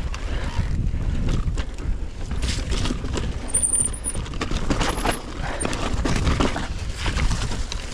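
Mountain bike riding over a rocky, muddy trail: tyres rolling and crunching over rock and dirt, the bike rattling and clicking over the bumps, over a steady low rumble.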